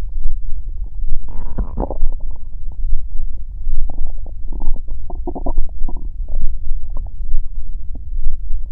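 Human stomach growling: a steady low rumble with bursts of bubbling gurgles, one about a second in and a longer run from about four to six and a half seconds in.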